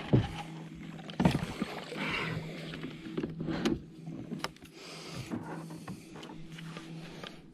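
Pedal-drive fishing kayak under way: the pedal drive runs with a steady low hum while water swishes along the hull. A few sharp knocks break in, the loudest two near the start.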